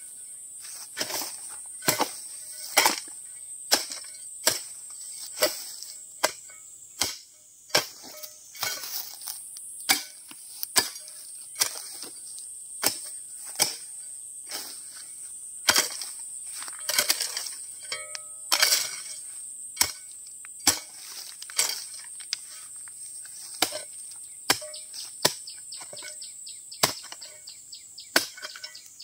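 Repeated chopping with a blade, sharp strokes at roughly one a second with short pauses. Behind it is a steady high-pitched insect drone.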